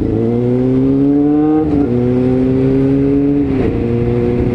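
Motorcycle engine pulling away under acceleration, heard from the rider's seat: the revs climb, drop at an upshift a little under two seconds in, climb again and drop at a second upshift near the end.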